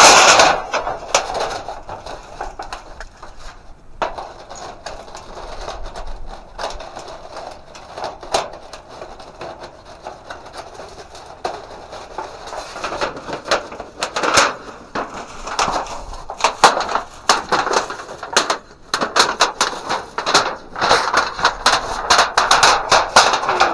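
The thin sheet-metal chimney pipe of a Seek Outside tent stove being rolled up and handled. It makes a long stream of crinkling, crackling and popping clicks, with a loud burst at the start and denser crackling in the last few seconds.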